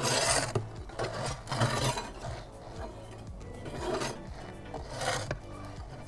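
Perforated metal pizza peel scraping across the floor of a wood-fired pizza oven in several short rasping strokes as it slides under the pizza. Faint background music runs underneath.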